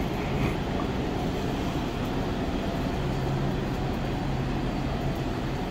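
Steady noise of Metro light-rail trains standing at a station platform, with a low steady hum that comes in about three seconds in and fades about two seconds later.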